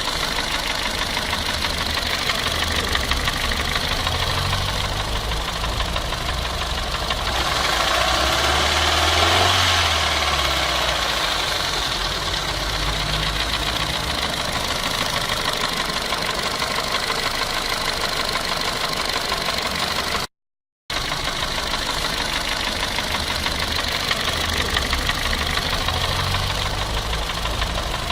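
Renault Clio II engine running, briefly revved up and let back down about a third of the way in, with the unusual noise that marks a fault. The sound drops out for a moment near the middle.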